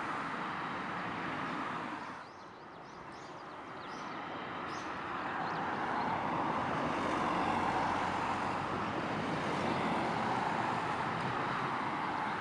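Steady outdoor rushing noise, like wind or distant road traffic, that dips about two seconds in and then swells back, with a few faint high ticks in the lull.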